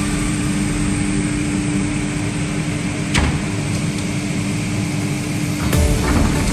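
CNC nesting router running with a steady hum and machine noise. There is a sharp click about three seconds in and a couple of knocks near the end.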